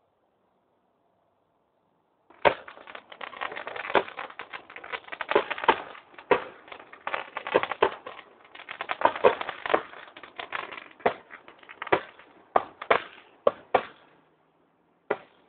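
Fireworks crackling: a couple of seconds in, a dense, fast run of sharp pops and cracks begins, with louder bangs among them, thinning to a few scattered single cracks near the end.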